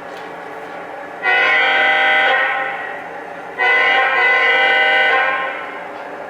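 Lionel O-gauge Conrail ES44 model locomotive's onboard sound system sounding its diesel air horn, several notes at once: two blasts, the first about a second long, the second nearly two seconds and fading out at its end. Beneath them the steady sound of the model train running.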